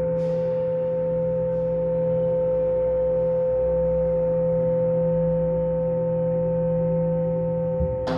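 Metal gong ringing on after being struck, a sustained hum of several steady tones with a deep note underneath. Near the end there is a light knock against it.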